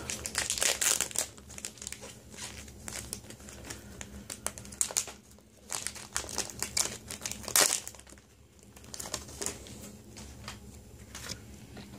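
Foil booster pack wrapper crinkling and tearing as it is opened by hand, in irregular crackles that are busiest at first, with one louder crackle a little past halfway.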